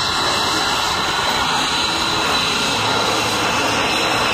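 Steady jet noise from F-35 Lightning II fighters' single turbofan engines as a formation flies past, an even rushing roar at a constant level.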